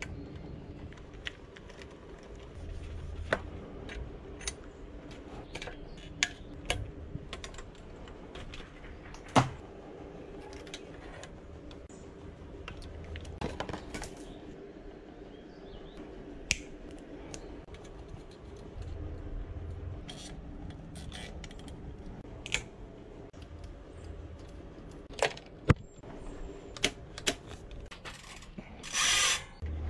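Scattered small clicks, snaps and taps of hands and tools working on bicycle parts at the handlebar and drivetrain, over a steady low hum. A short louder rasping noise comes near the end.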